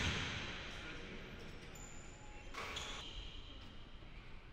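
A basketball bouncing on a hardwood gym floor, once clearly about two and a half seconds in, echoing in the large hall over faint room noise.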